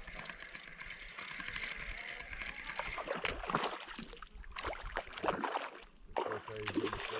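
Lake water splashing and lapping close by, in small irregular strokes.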